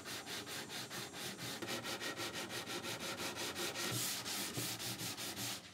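Hand sanding with 180-grit sandpaper on a sanding block: quick, even back-and-forth rasping strokes, about six a second, levelling a cured epoxy-putty patch on a mahogany edge. The strokes stop abruptly near the end.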